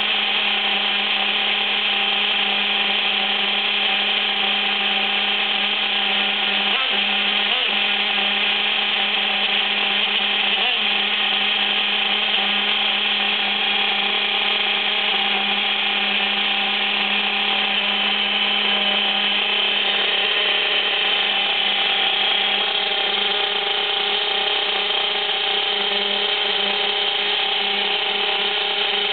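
The small nitro engine of a CEN Nemesis RC monster truck idling steadily, with its drivetrain gears running along; the owner takes it for a rough idle and a gear-mesh problem.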